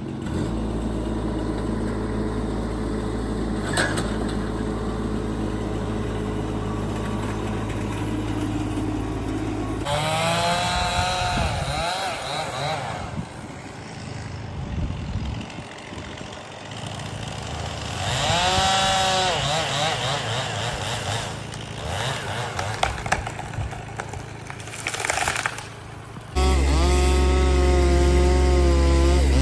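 Chainsaw idling, then revved up and down hard twice while cutting. Near the end a louder, steady engine sound starts abruptly.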